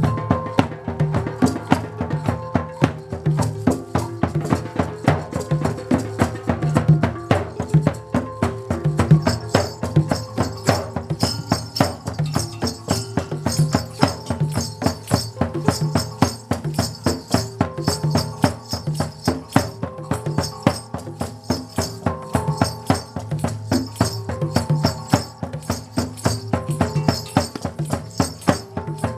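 Music: a fast, even run of percussive clicks over held pitched notes and a low bass. About nine seconds in, a bright high layer joins.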